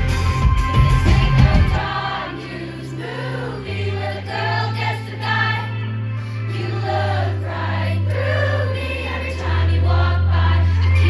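Pop song with singing. The full drums drop out about two seconds in, leaving the voices over long held bass notes.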